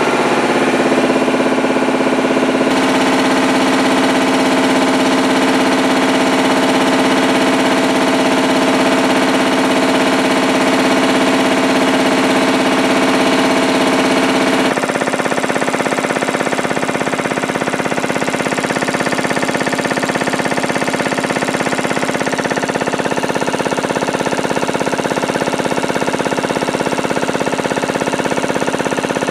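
Matsubara CMH 114A reciprocating marine air compressor running steadily under its electric drive motor. It is a continuous mechanical hum and clatter, and its tone shifts abruptly about three seconds in and again about halfway through.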